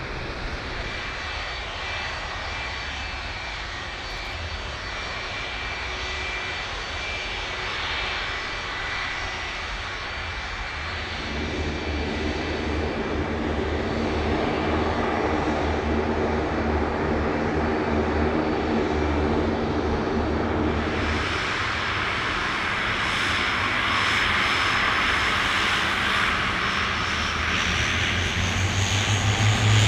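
Airliner's engines running and growing gradually louder as the aircraft comes closer, with a steady high whine over a rumble. From about a third of the way in, a low hum with several steady tones joins, and past two-thirds in a broader rushing noise takes over.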